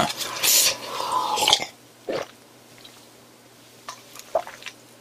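Close mouth sounds of a person drinking from a glass mug and eating: gulping and breathing for the first second and a half, then a few faint chewing clicks near the end.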